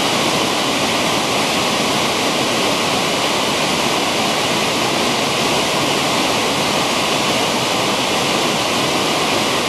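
River water pouring over a wide, low waterfall and churning through rapids between large boulders: a steady, unbroken rush.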